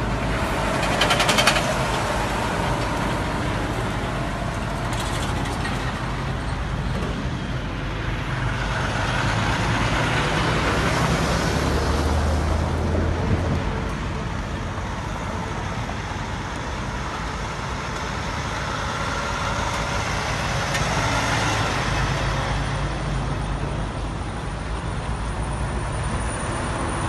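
Steady motor-vehicle noise of running engines and road traffic: a continuous low engine hum under a haze of road noise, swelling twice.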